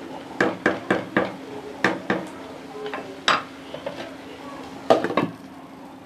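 Wooden spatula knocking and scraping against a nonstick kadai while stirring thick masala gravy, a series of sharp knocks; about five seconds in, a quick cluster of clatters as a glass lid is set on the pan.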